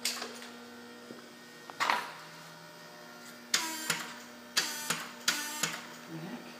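Starter on a Honda R18A engine buzzing in three short bursts about a second apart, after a couple of sharp clicks, over a steady electrical hum. The owner does not recognise the sound and puts it down to low battery voltage or the starter drawing too much current.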